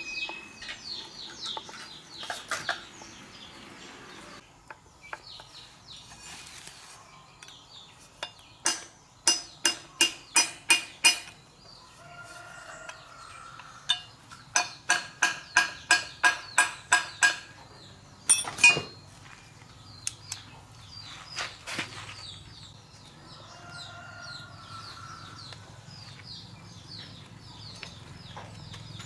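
A hammer striking the steel differential of a rickshaw's rear axle: a run of about seven sharp, ringing metal blows, then about ten more at roughly three a second, and one last single blow. Chickens cluck throughout.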